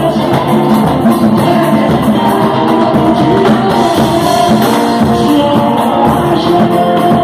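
Live band music played loud, with percussion and singing.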